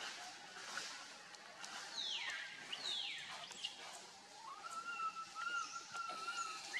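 Animal calls in forest: two quick falling calls about a second apart, then from about midway a long, slightly wavering whistle-like call.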